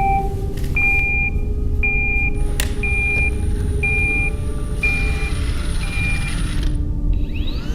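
Roomba robot vacuum beeping: six short electronic beeps about a second apart, growing fainter, over a steady low rumble.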